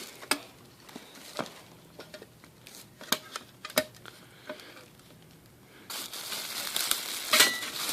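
Parts and packaging of a Keurig K-Cup coffee maker being handled: a few scattered light clicks and taps of plastic, then from about six seconds in a steady crinkling rustle of packaging.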